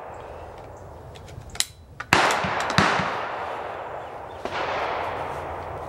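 Rimfire rifle firing: a sharp report about two seconds in with a long fading echo, a short sharp crack just over half a second after it, and a fainter report with a long tail about four and a half seconds in.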